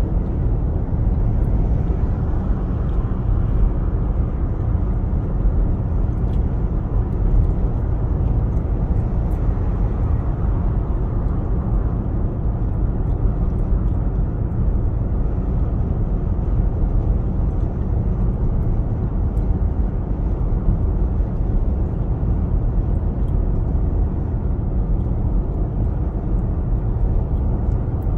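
Steady low rumble of road and tyre noise inside a Genesis GV70's cabin as it cruises on an expressway.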